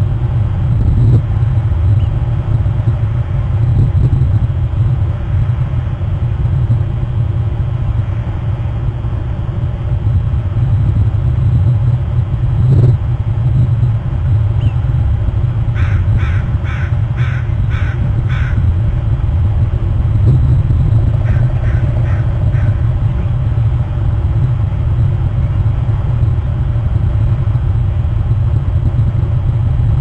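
A crow cawing in two runs, about six caws then four, around the middle, over a steady low rumble.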